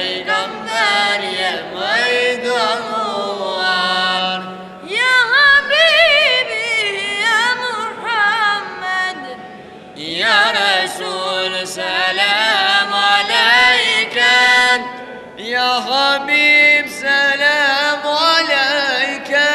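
Boys' voices singing an Albanian nasheed (Islamic devotional song) praising the Prophet Muhammad, in long phrases with wavering, ornamented melody and short pauses for breath.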